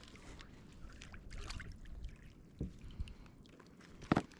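Small tarakihi splashing at the water's surface beside a kayak as it is reeled in, then a few knocks as it is swung aboard, the loudest near the end.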